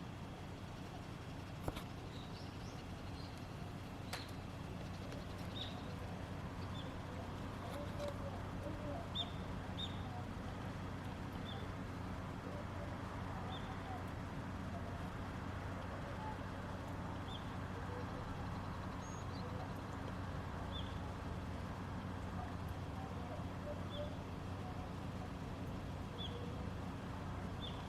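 A small bird calling: short, high chirps repeated every few seconds, over a steady low hum.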